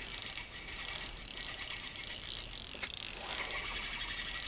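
A fishing reel being cranked to bring in line: steady fine clicking and whirring of the reel's gears as a hooked fish is reeled up through the ice hole.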